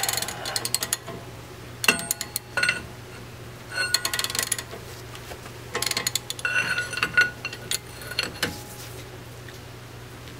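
Steel cheater pipe and breaker bar clanking and clinking together in several short bouts, metal ringing after each knock, as the pipe is fitted over the bar's handle for more leverage on a stuck fastener.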